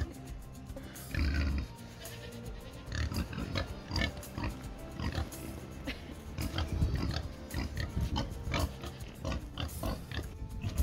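Background music with the calls of young Anglo-Nubian cross goat kids.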